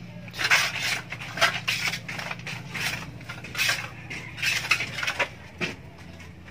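A hand plastering tool scraping and rubbing over fresh cement plaster along the top edge of a wall, in a run of irregular strokes about two a second that stop shortly before the end. A steady low hum runs underneath.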